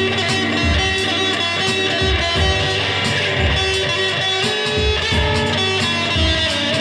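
Electric guitar being played over a backing track, with a steady low beat underneath.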